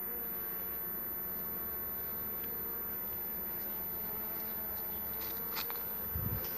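Honeybees buzzing around an opened hive during a honey harvest: a steady hum of many tones. A few light clicks and a short dull thud come near the end.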